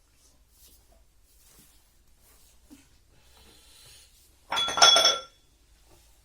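Faint eating sounds, then about four and a half seconds in a loud clink of tableware that rings briefly with several tones.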